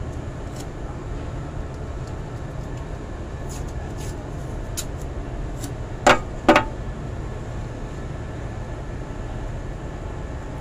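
Steady low rumble of running machinery, with two sharp knocks about half a second apart near the middle.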